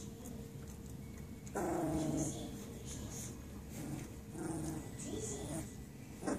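Young puppies growling and whining as they mouth and play-bite each other without teeth yet: a louder, longer growl about one and a half seconds in, softer ones around four to five seconds, and a short sharp one at the end.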